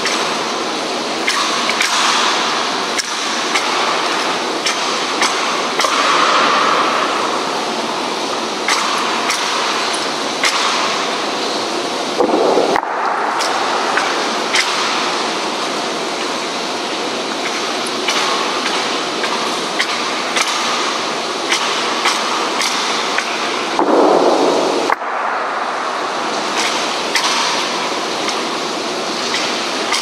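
Steady rain falling, with frequent sharp taps of drops throughout. The rain noise cuts out abruptly twice, about 13 and 25 seconds in.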